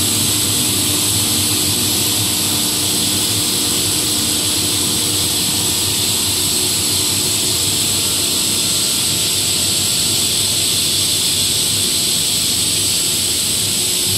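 Steady noise of a running PE plastic pipe extrusion line: a constant rushing hiss over a low machine hum, unchanged throughout.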